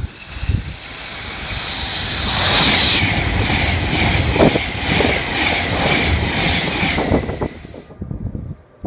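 Avanti West Coast electric express train passing at speed: a rushing noise builds as it approaches, then a run of regular wheel beats, about two a second, with a steady whine underneath as the coaches go by, falling away near the end.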